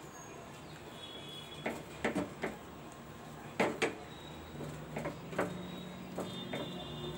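Spatula scraping and knocking against a non-stick frying pan while a thick, doughy milk-powder and cocoa mixture is stirred, with irregular knocks every half second or so.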